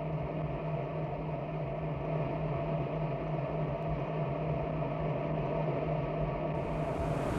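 Steady mechanical hum with a constant low drone and a fainter higher tone, used as a recreated car-engine sound effect; a faint hiss comes in near the end.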